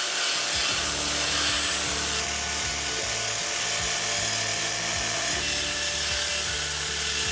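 A power tool cutting into the old spud inside a steam radiator, running as one steady, continuous noise with a thin high whine over it.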